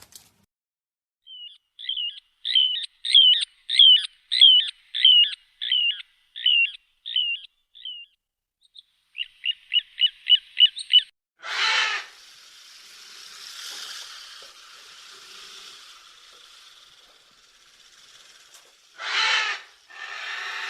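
A bird calling: a run of high chirps, each dropping in pitch, about two a second, then a quicker run of shorter chirps. After that come two short bursts of noise with a steady hiss between them.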